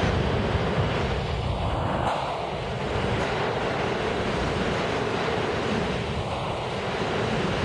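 New York City Subway train passing along the platform at speed, a steady, loud rolling noise of a train moving on the rails.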